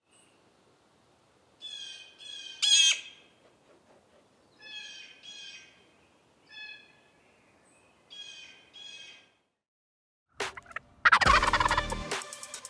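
A bird calling in a string of short calls, one louder call about three seconds in, then loud music starts about ten seconds in.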